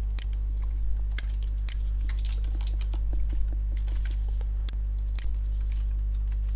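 Scattered keystrokes and clicks on a computer keyboard over a steady low electrical mains hum.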